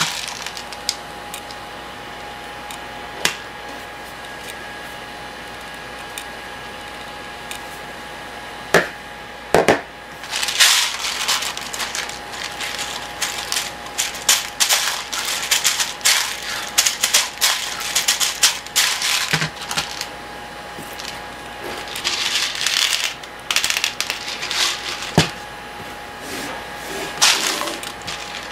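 Plastic airsoft BB pellets rattling inside a homemade PET-bottle loader as it is handled, in two long stretches of quick clicking rattles, with a few single sharp knocks in between.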